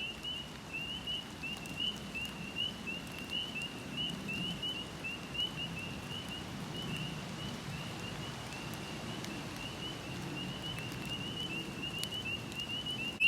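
A chorus of spring peepers calling: short, rising peeps, several a second, one after another, with no break. A low rush of running stream water underneath.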